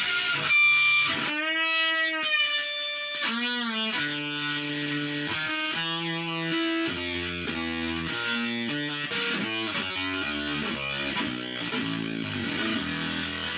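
Electric guitar played through a Behringer octave divider and fuzz pedal: a few long bent notes, then a quicker single-note line, each note doubled an octave below.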